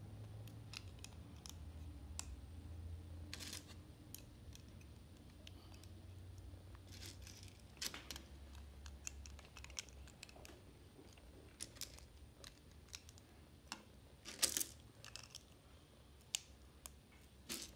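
Faint scattered clicks and light clatter of small plastic Lego bricks being handled and picked out during a build, with the loudest clatter about fourteen seconds in, over a low steady hum.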